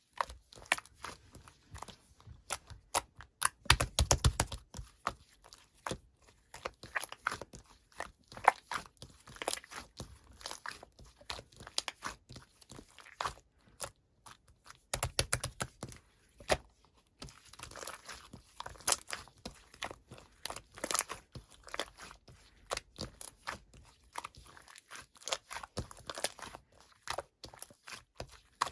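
Scarlet slime being squeezed, stretched and folded by hand, giving irregular sticky clicks and pops. Denser clusters of pops with low thumps come about four seconds in and again about fifteen seconds in.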